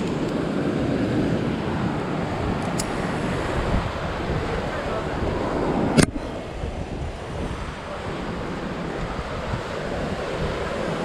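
Ocean surf and wind buffeting the microphone as a steady rushing noise, with one sharp knock about six seconds in.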